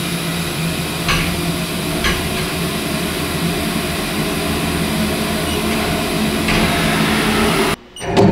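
CNC milling machine running with a steady hum, a few light clicks over it, as a tool is measured against the tool-length probe. The sound cuts off abruptly near the end.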